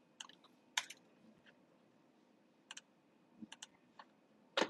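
Sparse keystrokes and clicks at a computer keyboard, short sharp taps spaced out, several in quick pairs, with the loudest tap near the end.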